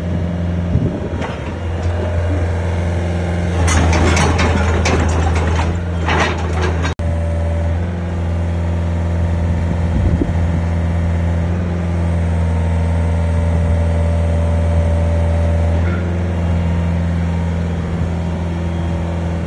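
Hitachi Zaxis 50 mini excavator's diesel engine running steadily while the boom and arm are worked. There are a few seconds of rattling about four seconds in, and a steady higher whine from about eight to sixteen seconds.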